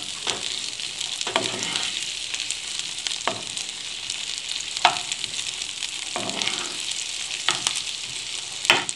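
Sliced onions sizzling in hot oil and butter in a frying pan, with a metal spoon scraping and knocking against the pan every second or two as they are stirred.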